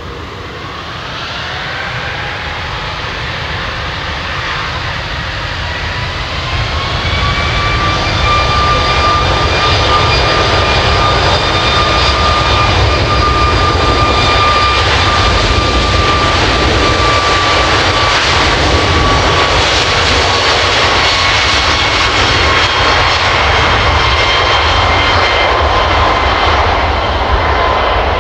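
Four Rolls-Royce Trent 500 turbofans of an Airbus A340-500 spooling up to takeoff thrust. A rising whine over the first several seconds then holds steady and loud over a broad roar as the airliner accelerates down the runway, the whine sagging slightly in pitch near the end as it pulls away.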